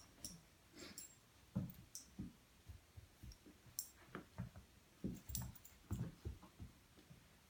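A Boston Terrier puppy and a cat scuffling as they play-fight: faint, irregular soft thumps and bumps mixed with light clicks.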